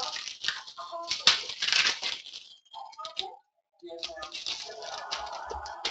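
Panini Hoops basketball card pack's foil wrapper crinkling and rustling as it is handled and torn open. The sound comes in two spells with a short quiet gap a little after the middle.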